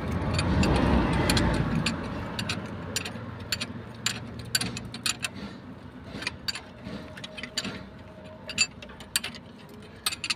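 Hand tools clicking and clinking on metal as a diesel engine's fuel injectors and their fuel lines are worked on, with irregular sharp ticks throughout. A low rushing swell fills the first two seconds.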